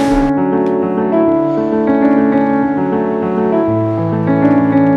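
Background piano music: a steady run of melody notes, with lower bass notes coming in about four seconds in.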